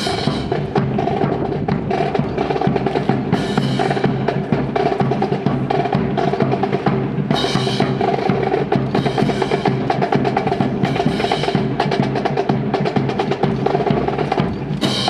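Drill accompaniment music led by drums: a rapid, continuous snare drum roll and dense percussion over a sustained chord, with sharper accents every few seconds.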